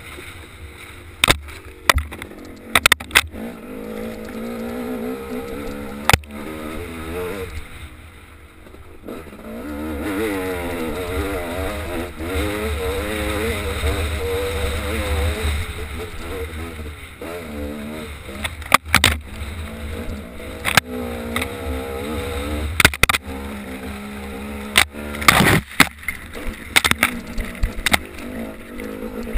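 Dirt bike engine running under changing throttle, its pitch rising and falling as it is ridden along a rocky trail, easing off briefly about eight seconds in. Sharp knocks and clatters from the bike over rocks come now and then, the loudest bunch near the end.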